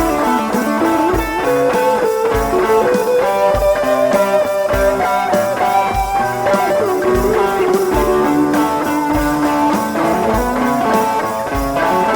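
Outro music: electric guitar over a steady beat.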